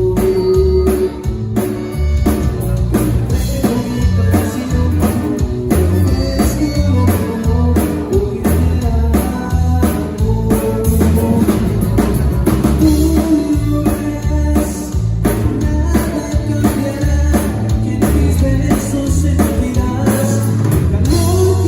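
Rock band playing live, with drum kit, a bass line that steps between low notes, guitar and a singing voice.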